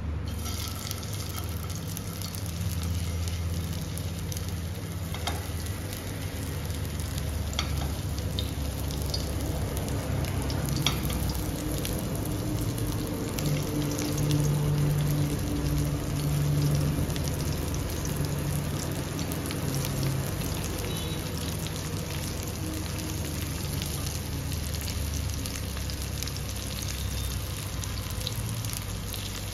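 Spice- and flour-coated cauliflower florets shallow-frying in hot mustard oil in a stainless steel pan, sizzling steadily with scattered sharp crackles of spattering oil as pieces are added.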